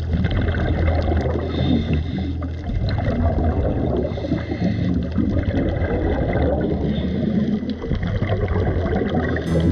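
Muffled underwater sound picked up by a camera submerged beside a boat's hull: a steady low hum under churning, gurgling water noise.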